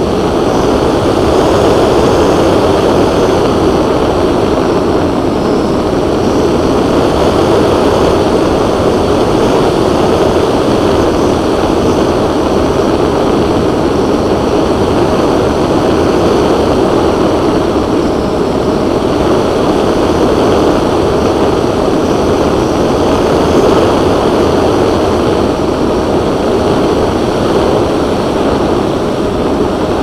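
Twin-motor RC plane's motors and propellers running steadily in flight, heard from the onboard camera as a loud, even rush mixed with wind noise.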